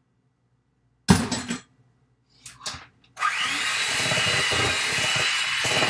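Two short knocks, the first the loudest, then about three seconds in an electric hand mixer starts and runs steadily with a high whine, beating the cookie batter in a metal bowl.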